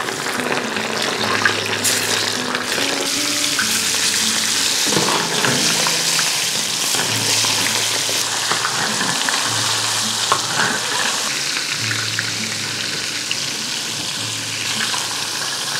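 Meat-stuffed chili peppers frying in hot oil in a wok, a steady loud sizzle with a few sharper crackles.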